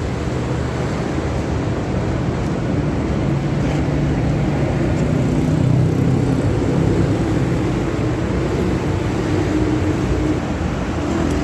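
Steady low mechanical drone with several humming tones, swelling slightly a little past the middle.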